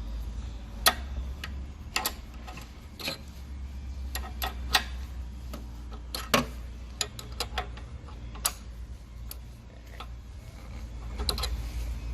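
Irregular metallic clicks and taps of a small bicycle wrench fitting onto and turning a pedal locknut against the crank, some clicks sharper than others.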